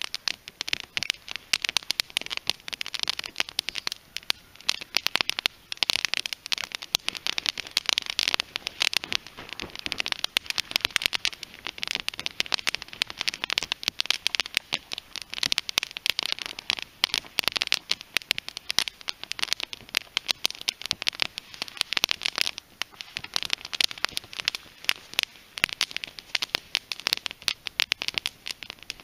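Small teepee fire of split green western red cedar heartwood crackling as it catches, a dense irregular run of sharp snaps and pops.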